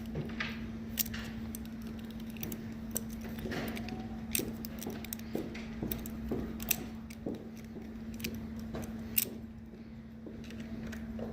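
Scattered, irregular light metallic clicks and taps from a hand tool working a glass door's adjustment arm, over a steady hum.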